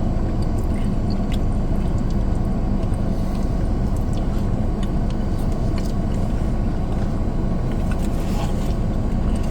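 Steady low rumble of a car heard from inside the cabin, with a few faint clicks scattered through it.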